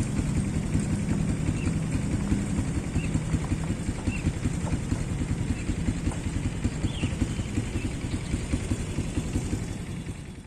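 Small ATV engine running steadily with a rapid low putter, growing quieter over the last couple of seconds.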